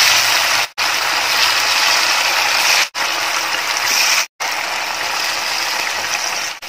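Batter-coated chicken pieces deep-frying in hot oil: a loud, steady sizzle with dense crackling. It breaks off for an instant three times.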